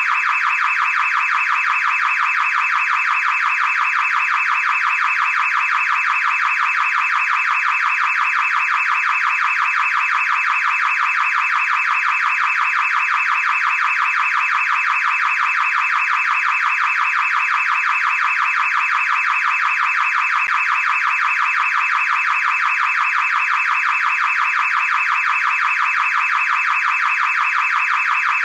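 Car alarm sounding continuously: a high, rapidly pulsing tone that repeats many times a second and stays unchanged throughout.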